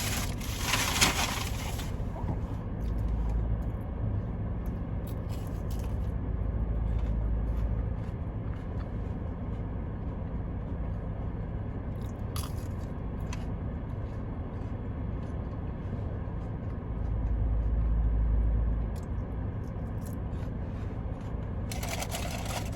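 Fried onion rings being bitten and chewed close to the microphone, a loud crunch in the first couple of seconds, then quieter chewing, over a steady low hum.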